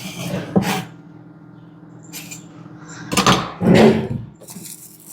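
Kitchen handling sounds: a few sharp knocks in the first second, then a louder cluster of clattering knocks about three to four seconds in, like a cupboard or door and things being moved. A low steady hum runs underneath.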